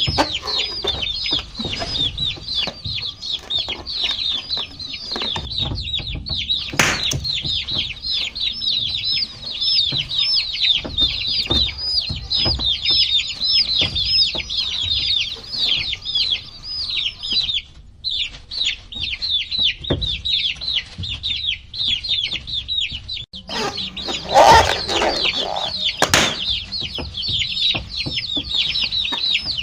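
A group of baby chicks peeping nonstop: many overlapping short, high, downward-sliding peeps. There is a brief pause a little past halfway, a couple of sharp clicks, and a louder brief noisy knock or rustle about four-fifths of the way through.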